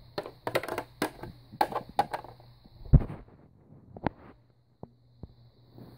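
A run of small clicks and knocks from plastic toy figures and playset being handled, with one heavier thump about halfway through, then a few isolated sharp clicks.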